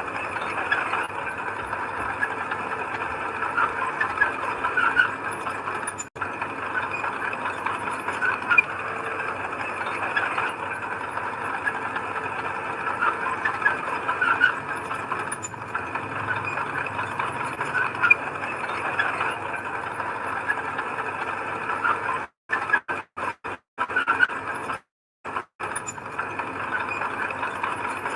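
Bulldozer working soil: steady diesel engine and tracks running with constant squealing and rattling from the track links. Near the end the sound cuts out to silence several times in quick succession.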